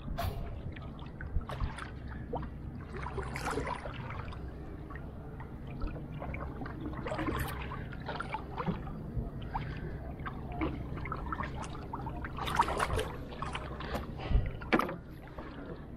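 Water splashing and lapping around a small wooden canoe as it is poled and paddled, with scattered short splashes and knocks.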